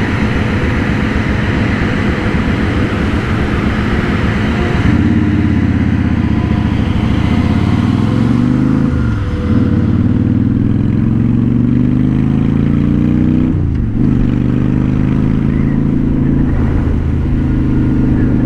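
2007 Honda Shadow Spirit 750's V-twin running through a Cobra Streetrod Slashdown exhaust, pulling through the gears. The engine note climbs and drops at shifts about nine and fourteen seconds in. For the first five seconds a rough rushing noise sits over the engine.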